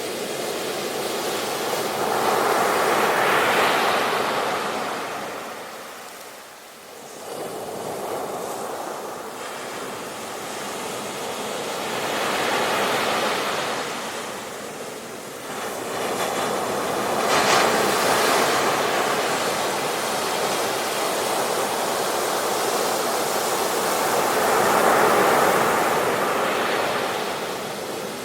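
Ocean waves breaking and washing on a shore, rising and falling in repeated surges every several seconds, with a sharper crash about seventeen seconds in.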